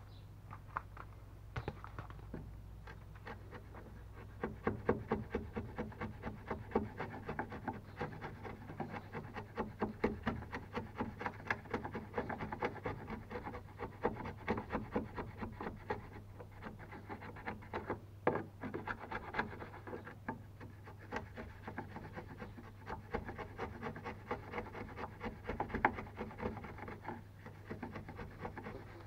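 Wood chisel pushed by hand, paring a notch in a wooden stringer: a steady run of small scraping, crackling cuts as the edge shaves off wood fibres, with a few sharper clicks among them.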